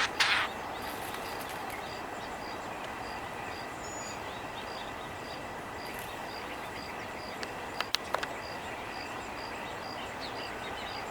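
Outdoor ambience: a steady background hiss with a faint high note repeating about twice a second. A brief burst of noise comes right at the start, and a few sharp clicks about eight seconds in.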